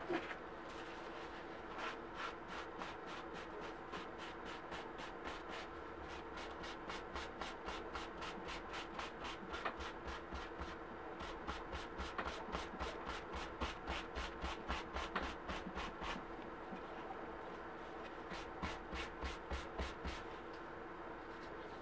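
A folded paper towel rubbed quickly back and forth over a dyed leather key chain on a paper-towel-covered table, several scrubbing strokes a second. The strokes pause briefly, then resume in a short final run near the end, over a steady low background hum.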